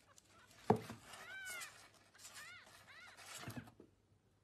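Kitten mewing: several short, high mews. A sharp knock comes about 0.7 s in, the loudest sound, with a smaller one just before the end.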